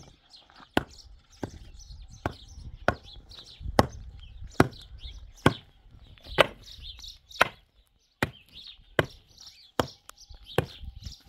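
A long-handled tool rammed down again and again into the stones and packed earth around the foot of a wooden post, tamping it in. About thirteen sharp strikes, a little more than one a second.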